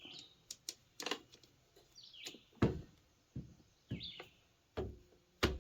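Scattered light clicks and knocks of small metal trimmer parts, a washer and nut, being handled, the loudest about two and a half seconds in and near the end. A bird chirps briefly a few times.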